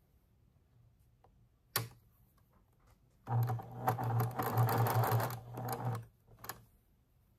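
Electric sewing machine running and stitching a seam for about three seconds, starting about halfway in. A single sharp click comes before it and a couple of lighter clicks after it stops.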